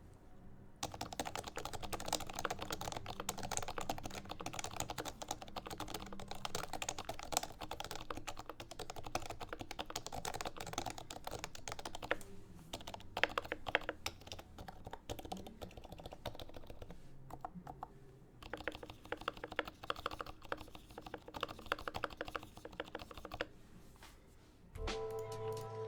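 Fast typing on a Topre keyboard: a Noxary XRF case holding Realforce 87U electro-capacitive switches, with Deskey pink domes and Krytox 205g0 lube. It is a dense stream of keystrokes with two short pauses. The typing stops near the end, and background music comes in.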